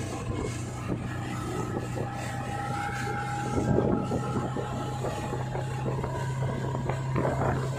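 Outboard motor of a towing speedboat running steadily at speed, a constant hum, with water rushing and splashing in the wake.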